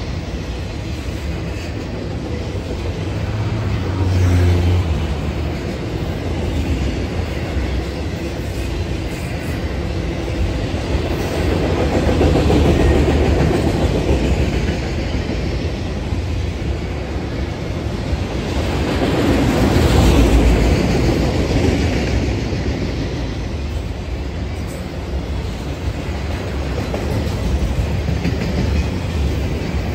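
Norfolk Southern freight train's cars rolling past on the rails: a continuous loud rumble and rattle that swells and eases every several seconds.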